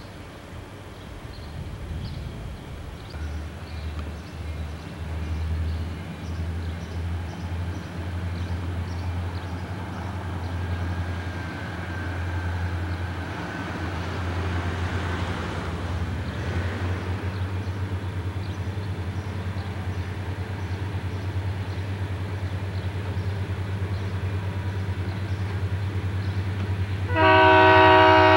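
Burlington Northern diesel freight locomotive approaching, its engine giving a steady low drone that builds as it nears. Near the end its air horn sounds loudly, several notes at once, for about two seconds.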